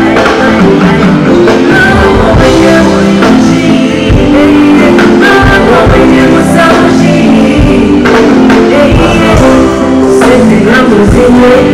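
Loud music with a singer over a steady beat.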